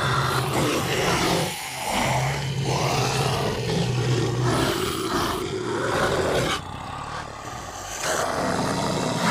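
Sound-designed monster roars and growls for the Reptyvator, a Predator/Alien-style creature: rough, rasping bursts over a low rumble, with a quieter stretch about six and a half seconds in before it swells again.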